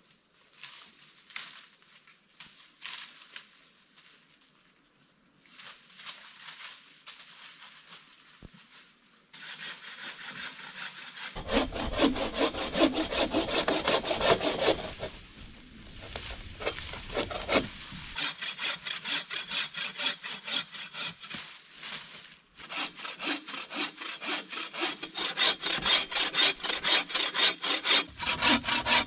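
A hand bow saw cuts through a fallen log in rapid back-and-forth strokes. The strokes start after several quiet seconds and grow louder, pause briefly, then return in a final, loudest run.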